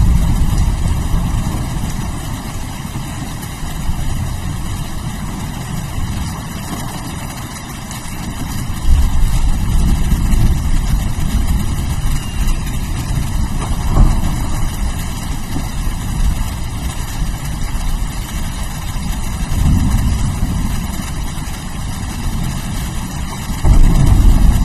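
Steady rain with low rolling thunder that swells several times, loudest about nine seconds in and again near the end.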